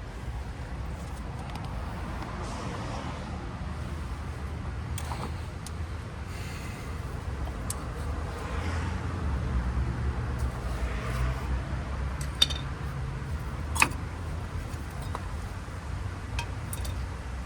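Metal tools and brake parts being handled, giving a few sharp metallic clicks, two of them louder about twelve and fourteen seconds in, over a steady low rumble.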